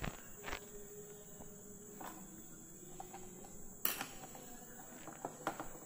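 A few faint clicks and taps, the sharpest about four seconds in, from a hand at the push buttons and switches of a PLC demonstration board, over a steady faint high-pitched hiss.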